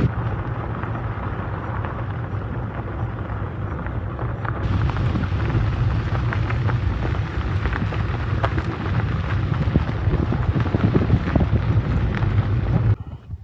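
Steady rain falling, with scattered drop ticks over a low rumble. The sound turns brighter about four and a half seconds in and cuts off just before the end.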